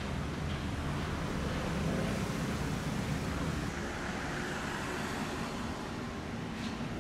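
Street traffic: a steady wash of passing cars with a low engine rumble, swelling slightly about two seconds in.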